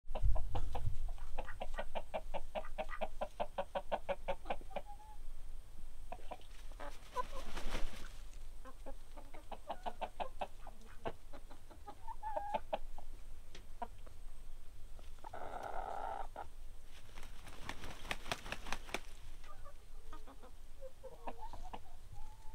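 Backyard chickens clucking, with a fast run of clucks in the first few seconds, scattered clucks after it and a short louder call about two-thirds of the way in.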